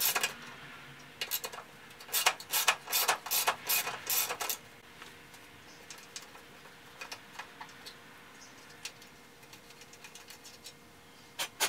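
Ratchet wrench clicking in short runs as it backs out a headlight-bracket bolt from the core support, followed by a few faint scattered ticks as the bolt is worked loose by hand.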